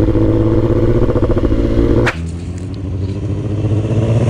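2006 Suzuki GSX-R1000's inline-four engine running with a steady pulsing note. About two seconds in the sound cuts abruptly to a quieter engine note, which grows louder near the end.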